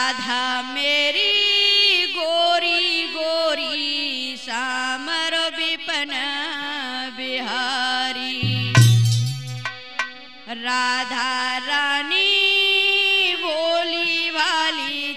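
Indian folk Holi music: a melody line with bending, ornamented notes over a steady lower drone, kept in time by dholak and chimta. A deep drum stroke stands out about nine seconds in.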